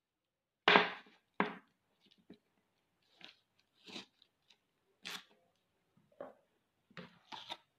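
Paper drawing sheet and masking tape being handled on a table: two sharp crinkling rustles in the first second and a half, then scattered lighter crackles.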